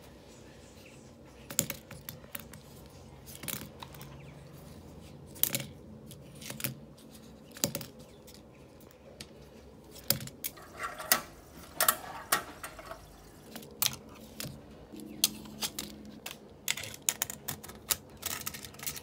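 Tech Deck fingerboard clacking on a desk as it is flicked through tricks: irregular sharp plastic taps and clicks of the deck and wheels landing, some in quick clusters.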